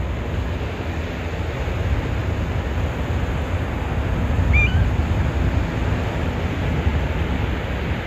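Surf washing on the beach under a steady wind, with a low rumble of wind on the microphone. About halfway through, one short rising bird chirp.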